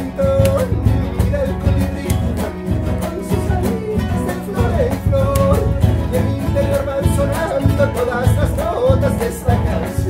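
Background music: a song with guitar and a singing voice over a steady low beat.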